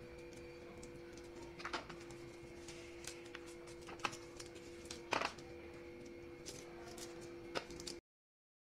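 Manila tamarind pods split open by hand: scattered small cracks and clicks of the pod shells and of seeds dropping onto a plastic plate, over a steady low hum. The sound cuts off abruptly near the end.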